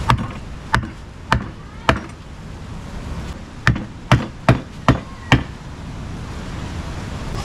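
Knife chopping through fish during cleaning: nine sharp chops, four about half a second apart, a short pause, then five more in quicker succession.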